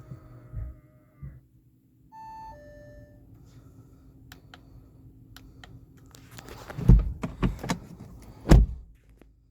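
Car cabin sounds from an Audi A3 e-tron: a short electric motor whine, then a two-note falling warning chime, a run of light clicks, and several heavy thumps and clunks near the end.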